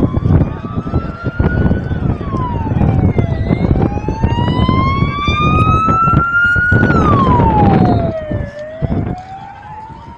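An emergency vehicle's siren wailing: its pitch climbs slowly for several seconds, then drops away in about a second and a half, twice, over a loud low rumble with scattered knocks.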